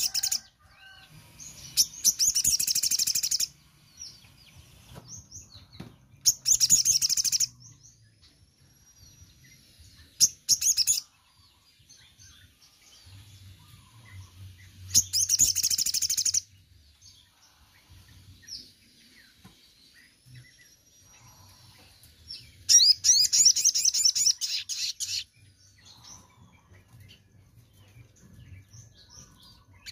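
Male olive-backed sunbird singing: five rapid, high-pitched trilling phrases of about one to two and a half seconds each, with faint thin calls between them.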